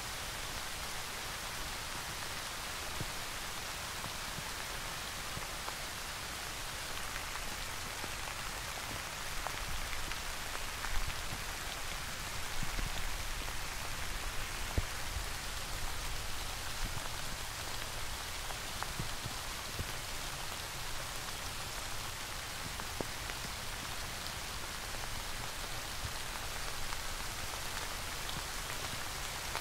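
Steady rain falling, with scattered single drops striking close by as sharp ticks. It is slightly heavier from about ten to sixteen seconds in.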